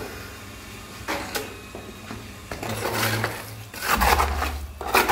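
Scraping and knocking of hands at work, ending in a hand tool scraping through wet cement mortar in a bucket, the loudest part, from about four seconds in.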